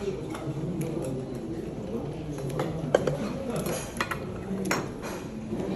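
Cutlery clinking against dishes during a meal, with sharp clinks roughly every second over low background chatter.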